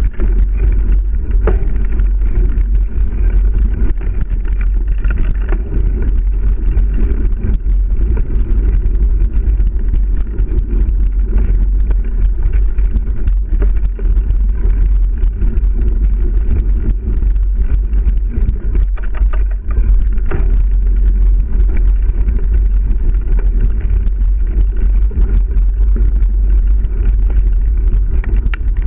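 Steady wind buffeting and rumble on a helmet- or bike-mounted action camera as a mountain bike rides dirt singletrack, with the bike's rattle and occasional knocks over bumps.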